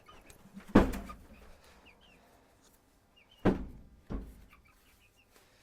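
Three dull knocks, the first about a second in and two close together past the middle, over chickens making soft, short calls throughout.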